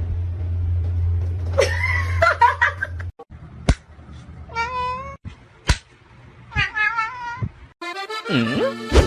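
A cat meowing three times in drawn-out, wavering meows, with a low steady hum under the first of them and a couple of sharp clicks between.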